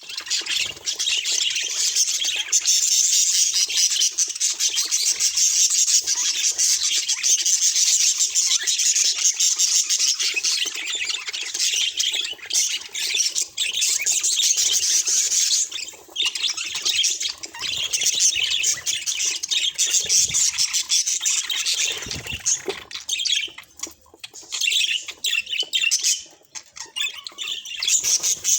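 Budgerigar chatter: a continuous stream of fast, high warbling chirps and squawks, easing briefly a little past halfway and again about three quarters through.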